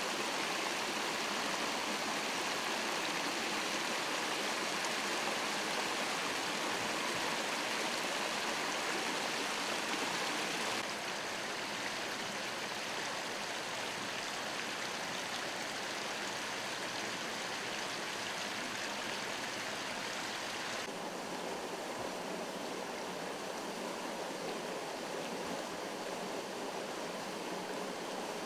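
Water from a broken underground water main rushing and gushing up through broken street asphalt and running along the roadway: a steady, even rush, a little quieter after about eleven seconds.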